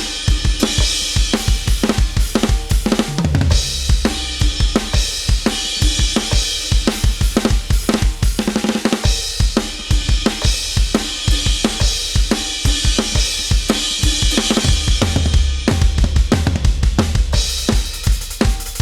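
Sampled acoustic drum kit from the Addictive Drums 2 software, triggered from an Avatar SD301-1 electronic drum set: fast, steady bass drum strokes under snare hits and crashing cymbals, with fills about three seconds in and near the end.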